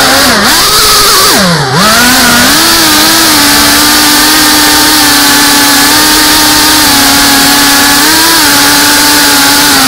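FPV quadcopter's brushless motors and propellers whining, recorded by the quad's onboard camera over a hiss of air rush. The pitch dips sharply as the throttle is cut about one and a half seconds in, then climbs back and holds nearly steady with small surges.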